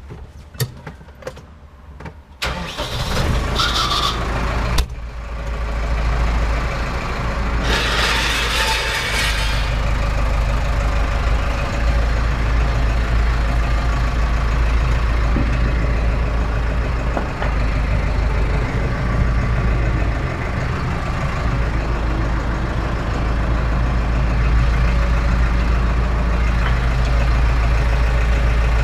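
McCormick C100 Max tractor's diesel engine, heard from inside the cab, started about two and a half seconds in after a few clicks, then running steadily as the tractor pulls away. There is a short hissing burst about eight seconds in.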